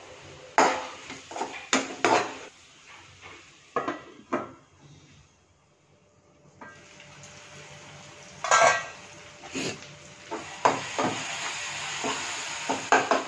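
A steel slotted spatula knocking and scraping against a nonstick frying pan as onion-tomato masala is stirred, in scattered sharp clanks. There is a short quiet gap midway, and a steady sizzle of the frying masala under the later strokes.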